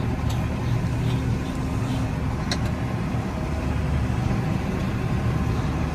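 Tractor engine running steadily, heard from inside the cab while it pulls a lime spreader across the paddock, with one brief faint click about two and a half seconds in.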